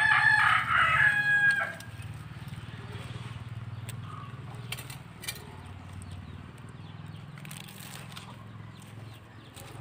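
A rooster crows once, loudly, ending in a long held note about a second and a half in. After the crow there is a low steady hum with a few faint clicks.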